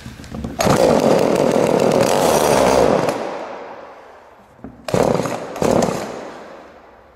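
Small two-stroke Echo chainsaw engine firing on starting fluid for about two seconds, then dying away. About a second later it fires again in two short bursts that also fade out. It will not keep running, which the owner puts down to not having primed the carburettor.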